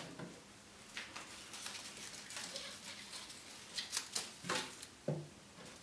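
A hand rustling through the leafy plants of a planted terrarium, giving scattered soft rustles and small crackles, a few of them close together about four seconds in.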